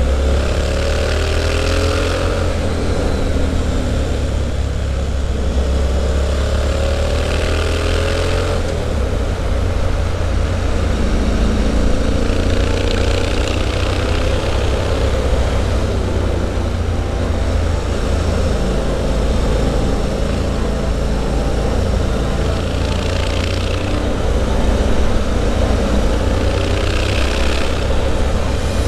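Triumph Street Scrambler's 900 cc parallel-twin engine, heard through an aftermarket Zard exhaust, pulling hard on the move. The revs climb and fall again and again as the bike accelerates between corners, with wind rush underneath.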